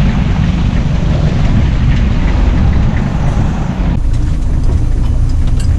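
Boat motor running steadily with a low rumble and wind on the microphone; about four seconds in the wind noise drops away, leaving a steady engine hum and a few sharp clicks.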